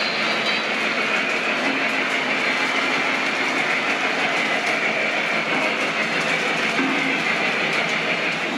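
Lionel model freight train running past close by: a steady whir of metal wheels rolling along the track as the boxcar and tank cars go by.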